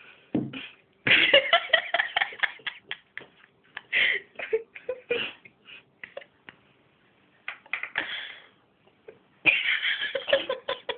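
A person's voice making short, irregular bursts of sound without clear words, with brief pauses between them.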